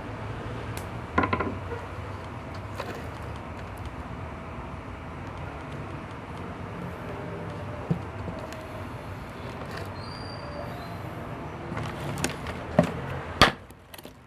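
Scattered clicks and knocks of parts and wires being handled, over a steady low hum, with a cluster of louder knocks near the end.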